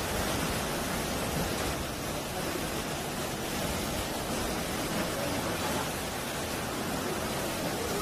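Sea waves surging and foaming over rocky shore, a steady rush of surf with no single sharp crash.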